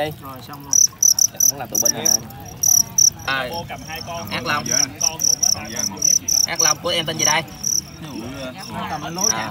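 Male fighting crickets chirping: short, high-pitched chirps in quick, irregular runs.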